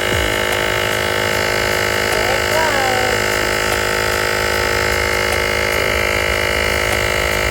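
Small electric air compressor of a portable car jump starter running steadily with an even hum, pumping up a flat tire.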